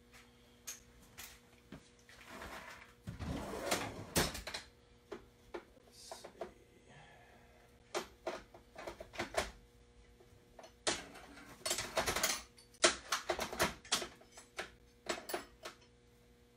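Metal hand tools and parts clinking and knocking while working on the accessory brackets of a Ford 351 Cleveland V8: an irregular clatter in several short clusters, busiest in the second half.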